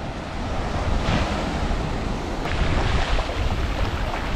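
Small surf breaking and washing up a sandy beach, swelling about a second in and again near three seconds, with wind buffeting the microphone.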